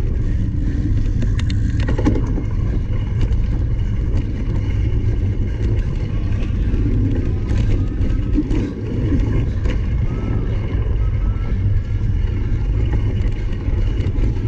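Steady wind rumble on the microphone of a cyclocross bike ridden at race pace, with scattered clicks and knocks from the bike over rough ground.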